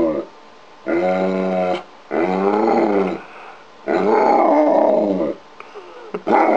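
German Shepherd 'talking': a run of drawn-out, grumbling howl-like calls, each about a second long with short pauses between, several bending up and then down in pitch, its trained imitation of 'hello'.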